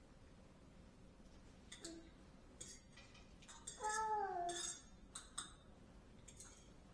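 A short vocal sound falling in pitch about four seconds in, among a few faint scattered clicks and hissy sounds in a quiet room.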